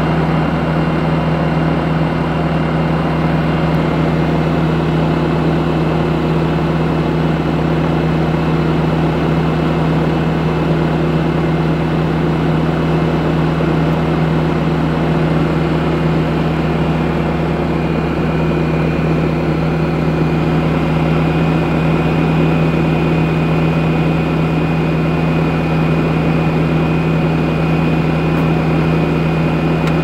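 Skid steer engine idling steadily with a constant low hum.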